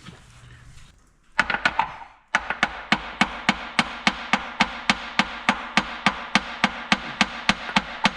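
Hammer blows on metal with a ring to them, during crankshaft removal from a Minneapolis-Moline ZA tractor engine. Four quick blows come about a second and a half in, then a steady run of about three blows a second.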